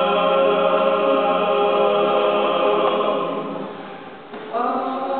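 Men's a cappella group singing in close harmony. A long held chord fades away a little over three seconds in, and the voices come back in together on a new chord about a second later.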